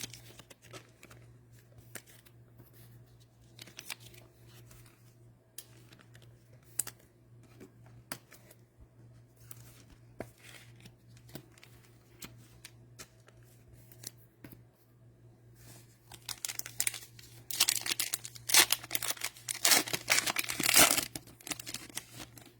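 Cellophane wrapper of a trading-card cello pack being torn open and crinkled, loudest and densest over a few seconds near the end, after quiet ticks of cards being handled. A steady low hum runs underneath.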